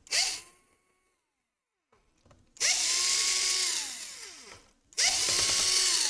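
Cordless drill-driver spinning to back out the screws holding a laptop battery. A brief blip at the start, then two runs of about two seconds each. In each run the motor whine climbs quickly, holds steady, then sinks as the motor winds down.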